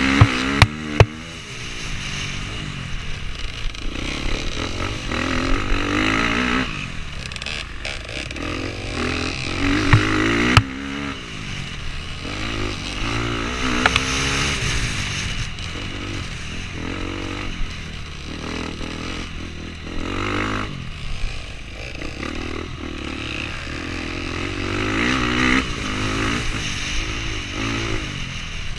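Dirt bike engine heard from on board, revving up and dropping off again and again as the rider accelerates, shifts and brakes through the course. A few sharp knocks come through, one or two right at the start and others about ten and fourteen seconds in.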